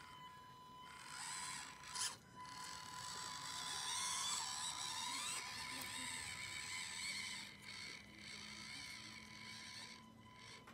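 Axial SCX24 1/24-scale RC crawler's small electric motor and gear drive whining as it crawls over paving stones, the pitch shifting with the throttle. There is a sharp click about two seconds in.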